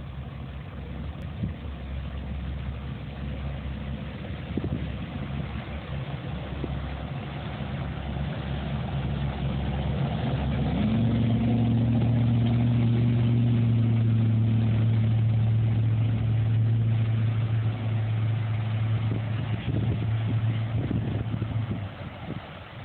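Express cabin cruiser's motor running as the boat approaches and passes close by, growing louder; about halfway through the engine note rises briefly and settles into a loud steady hum, which eases off near the end.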